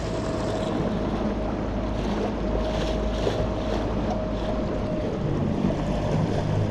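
Newport NK300 electric kayak outboard running at full power: a thin steady whine and low hum over rushing water and wind on the microphone.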